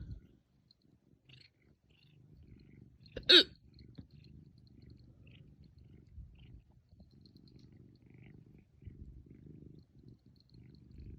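A single loud, sharp hiccup about three seconds in, one of a bout of intense hiccups. Underneath it runs a faint, steady low rumble.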